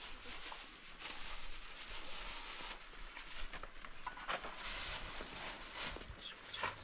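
Thin plastic bag crinkling and rustling as pieces of flatbread are stuffed into it, with sharper crackles a little past the middle and near the end, over a steady soft hiss.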